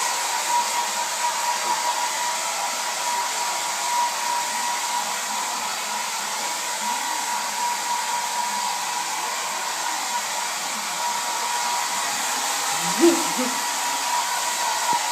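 Electric hair dryer running steadily, a constant rush of air with a steady whine, ready to dry the puppy. A short pitched sound stands out about thirteen seconds in.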